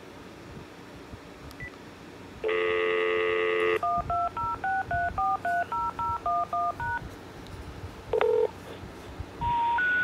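A telephone dial tone plays for about a second from a cordless phone handset, then cuts off as a quick string of about a dozen touch-tone (DTMF) digit beeps is sent. After a pause and a short beep, a three-step tone rising in pitch begins near the end: the special information tone that comes before an intercept recording.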